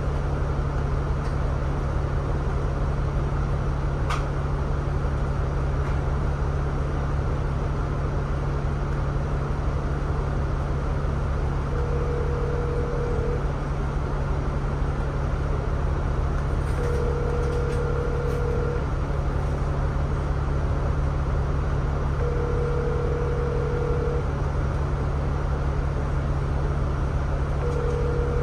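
Double-decker bus engine idling while stationary, a steady low hum heard from the upper deck. From about twelve seconds in, a steady mid-pitched tone sounds for a second or two, four times about five seconds apart.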